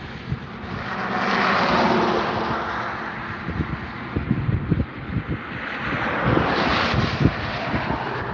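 Aircraft engines of planes flying past, a broad rushing drone that swells about a second in and again around six to seven seconds, with wind buffeting the microphone.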